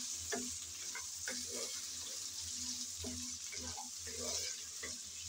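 Mixed vegetables sizzling in hot oil in a non-stick wok while being stirred with a wooden spatula, with a steady hiss and repeated soft scrapes and knocks of the spatula against the pan.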